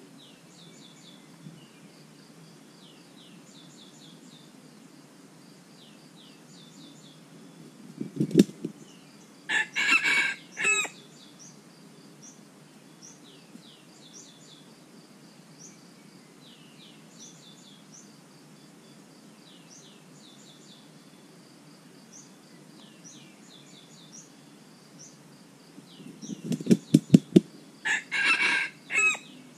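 A rooster beats its wings in a quick flurry and then crows a short, broken crow, twice: about eight seconds in and again near the end. Small birds chirp faintly in the background.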